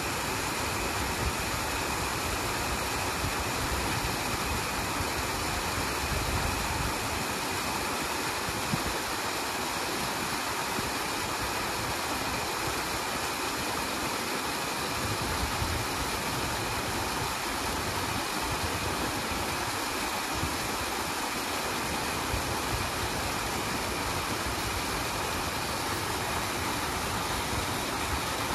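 Water falling over the spillway notch of a concrete sabo dam and running down a rocky stream bed: a steady rushing.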